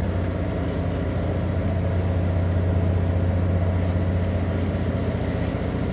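Patrol vessel's diesel engines idling: a steady, deep hum that does not change.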